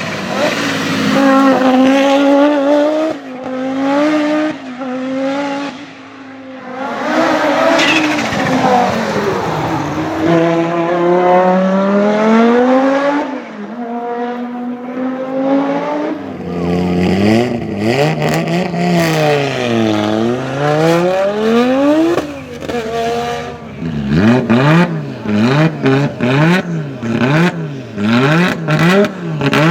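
Audi Quattro S1 E2's 2.1-litre turbocharged inline-five running hard, its revs climbing and dropping over and over as it accelerates and shifts. In the last few seconds come quick repeated rev blips, with sharp pops from the exhaust.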